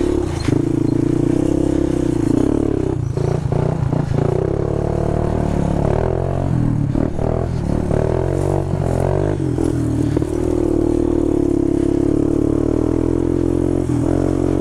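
A 250 ATV engine running steadily at low speed while the quad is ridden up on two wheels. From about three to ten seconds in, the engine sound turns rougher, with clattering knocks.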